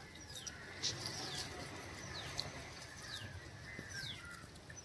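Birds calling: a series of short, high whistles, each sliding downward in pitch, repeated about once a second.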